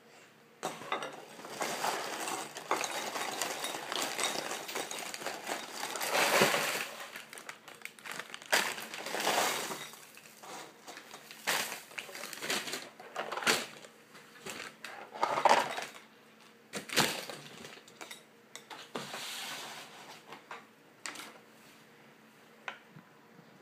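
Irregular clattering, clinking and rustling as a ceramic bowl and other things are handled on a table, in bursts with several sharp knocks.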